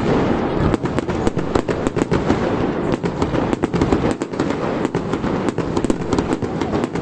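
Fireworks display going off in a rapid, unbroken string of bangs, many shells bursting close together.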